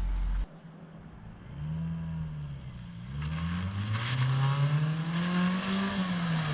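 1997 Honda Civic hatchback on its stock exhaust driving by: a short rise and fall of the engine note, then a longer climb as it accelerates, falling away as it passes.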